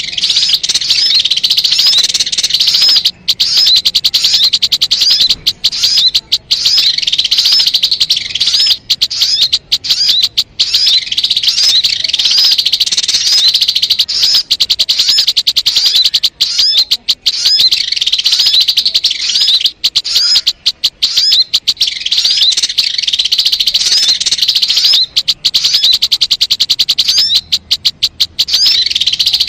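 Sogon (crimson sunbird) song: a long, rapid, high-pitched twittering chatter of quick repeated notes, almost unbroken with only brief pauses, as used in a recording to lure sogon birds.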